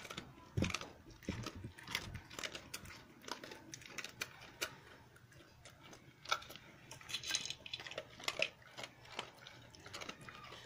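A dog eating dry kibble from an aluminium pot: crunching, with irregular quick clicks and clinks of the pellets against the metal.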